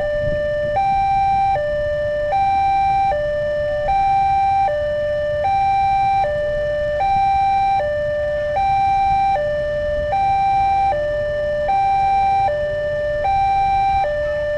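Railway level-crossing warning siren sounding an electronic two-tone alarm. It switches back and forth between a higher and a lower tone about every 0.8 seconds, over a low rumble, signalling that the crossing is closed for an approaching train.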